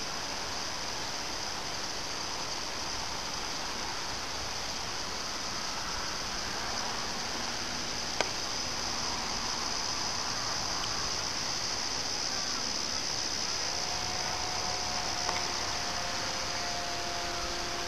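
Steady high-pitched chorus of insects such as crickets over a grassy field, with a single sharp click about eight seconds in.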